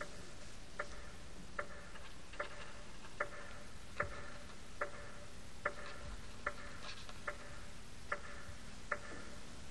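A clock ticking steadily, one tick about every 0.8 seconds, over faint hiss.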